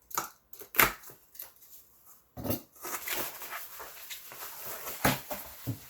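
Packaging being handled and unwrapped: a few sharp knocks and taps, the loudest just under a second in, then a stretch of rustling from about three seconds in.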